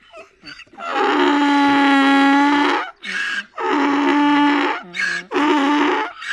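Donkey braying in drawn-out, mournful cries: one long held cry of about two seconds, then two shorter ones, each broken by a brief wheezing breath.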